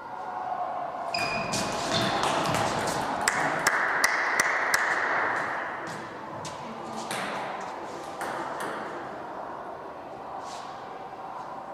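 Table tennis rally: the celluloid ball clicks sharply off the bats and the table in quick succession for a few seconds, then a few single clicks follow.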